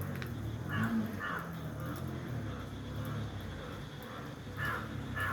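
Short harsh bird calls, caw-like, in two pairs: one about a second in and one near the end, over a steady low background rumble.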